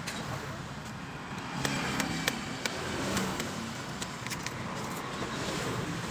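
Large knife chopping and slicing the tough husk of sugar palm fruits, sharp clicks and cuts at irregular intervals, over steady road traffic.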